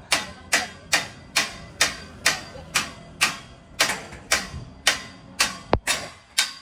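Hammer blows struck in a steady rhythm, about two a second, each with a short ring after it.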